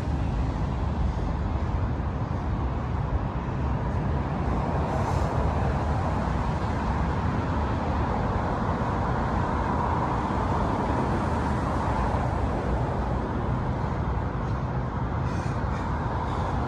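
Road traffic noise: a steady rush of vehicles with one passing by, swelling to a peak near the middle and fading again.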